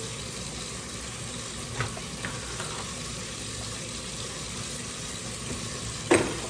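Battered flounder deep-frying in a pot of hot grease, the oil sizzling steadily. A faint click comes just under two seconds in, and a sharper knock near the end.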